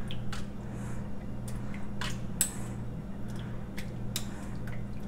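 A metal ladle scooping chunky watermelon purée from a cut-glass bowl and pouring it into a disposable cup: scattered light clicks of the ladle on the glass and wet squishes of the purée, over a steady low hum.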